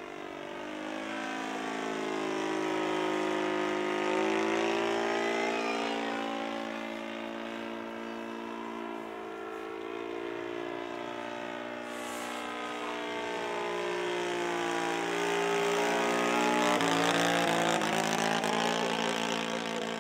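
The engine and propeller of a radio-controlled 1:6 scale Fieseler Storch model plane running steadily in flight. The engine note grows louder as the plane passes close, about four seconds in and again near the end.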